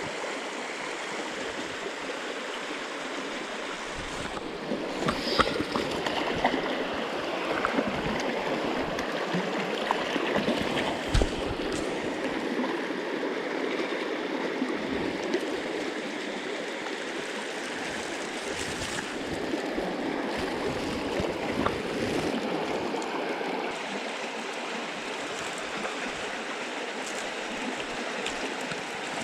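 Mountain stream water rushing steadily over rocks, with a few brief knocks; the sharpest knock comes about eleven seconds in.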